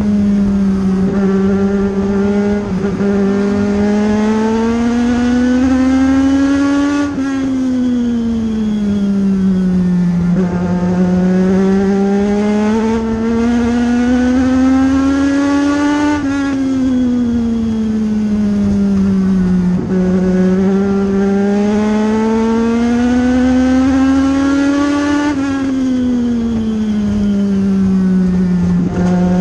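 A Legends race car's Yamaha four-cylinder motorcycle engine at racing speed, heard from inside the cockpit. Three times, the revs climb steadily for about six seconds and then drop sharply as the driver lifts for a turn, once each lap of the short oval.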